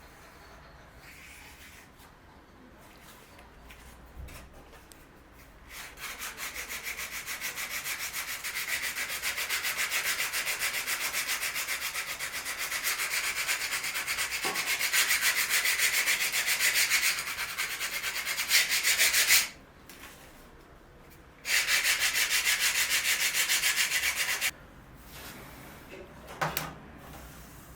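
Sandpaper sanding a wooden piece by hand, in rapid, even rubbing strokes. There is a long stretch of sanding, a brief pause, then a shorter run that stops near the end.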